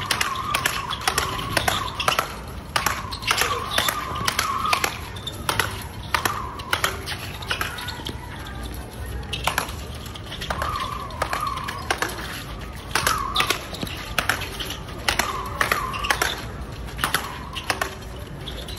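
Speedball rally: the ball on its tether to the central pole is struck back and forth with rackets, a quick run of sharp cracks, several a second, with short squeaky tones recurring in between.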